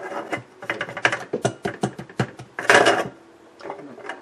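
Metal clicks and clanks as the latch and stainless-steel lid of an electric spice grinder are worked open after grinding dried turmeric, with a louder rasping clatter after about two and a half seconds.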